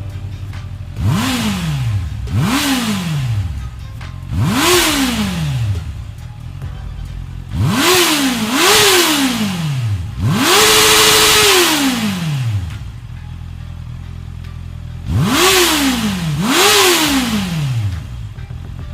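Honda CB650R inline-four motorcycle engine idling and being revved through its exhaust in short throttle blips: three single blips, a quick pair, one rev held at a steady high pitch for about two seconds, then another pair. Each time it drops back to idle.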